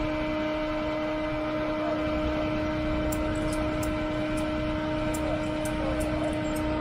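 Steady machine hum with a strong low tone and a fainter one an octave above it, over a haze of noise, with a few faint ticks in the second half.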